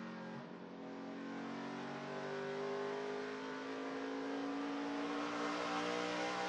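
NASCAR Camping World Truck Series truck's V8 engine heard on board at racing speed, easing briefly about half a second in, then climbing steadily in pitch as it accelerates out of the turn onto the straightaway.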